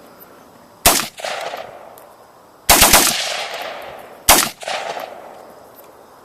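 Bushmaster AR-15 with a Slide Fire bump-fire stock firing steel-cased Tula .223: a single shot, then a rapid burst of about five shots, then another single shot. Each is followed by a rolling echo.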